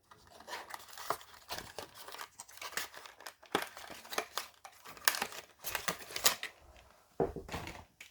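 Plastic packaging crinkling and tearing in irregular crackles and clicks as a diecast model car is taken out of its package.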